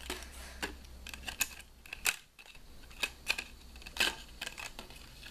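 Plastic protective sheath clicking and scraping as a Rapala fillet knife is worked out of it by hand: a run of irregular sharp clicks, the loudest about two and four seconds in.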